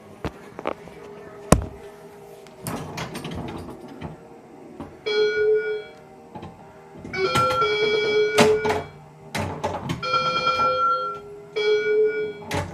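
Bally Cybernaut pinball machine's electronic sound effects: short runs of steady beeping tones, a plain 'bing, bing, bing' rather than the expected 'pew pew' space-gun sounds, among sharp mechanical clicks and knocks from the machine, one loud knock about a second and a half in. The owner suspects an early ROM or a ROM for a different game on its Cheap Squeak sound board.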